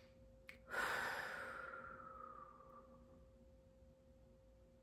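A person's deep exhaling sigh, a deep belly breath let out through the mouth. It starts suddenly just under a second in, after a small click, and fades away over about two seconds, dropping slightly in pitch as it goes.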